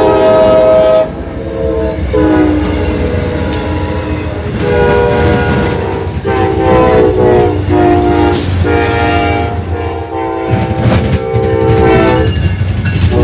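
Diesel locomotive air horns sounding a quick string of blasts, each a different chord, changing abruptly from one to the next over the steady rumble of passing locomotives.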